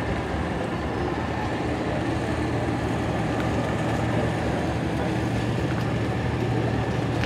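Steady low drone of an engine running at a constant speed, with a faint unchanging high tone over it.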